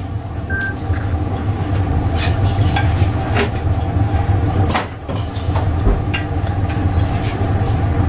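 Steady low mechanical hum of glassworking workshop equipment, with scattered sharp clicks and snips as steel shears cut and shape hot glass on a metal rod. The loudest snap comes a little before the five-second mark.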